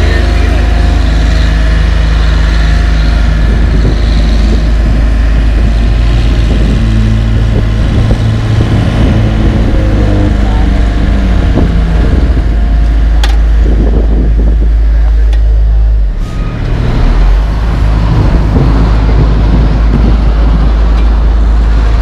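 Heavy diesel engine noise from a small tandem asphalt roller and passing highway truck and car traffic: a steady low drone, with one engine note falling in pitch about halfway through.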